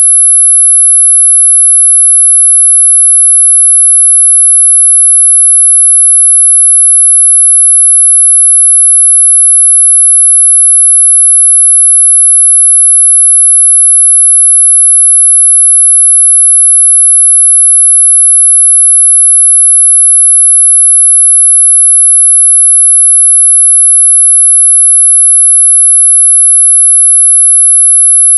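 A synthetic 'mosquito tone': a single pure, very high-pitched sine tone held steady and unbroken, used as a mosquito sound effect. It has none of the lower, buzzing wingbeat hum of a real mosquito.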